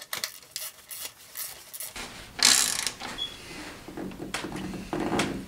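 Ratchet wrench clicking as a threaded plug with a new copper crush washer is screwed into the BMW M51 diesel engine, with a quick run of clicks, a brief louder rasp about two and a half seconds in, and a few lighter clicks near the end.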